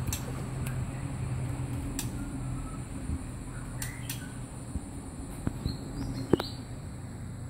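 Oriental magpie-robin giving a few short, sharp calls, with scattered clicks over a steady low hum. A single sharp click a little after six seconds in is the loudest sound.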